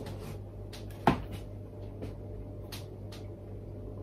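Marble soda bottle being opened with its plastic push-in opener: a few light clicks and taps of plastic on the bottle neck, and about a second in one loud sharp pop as the glass marble stopper is forced down into the bottle.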